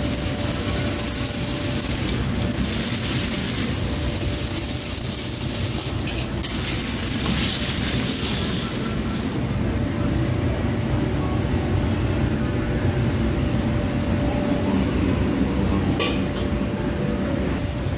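Ladle stirring and clinking in a wok, with sizzling during the first half, over a steady low rumble from the wok station's burner. A sharp clink comes near the end.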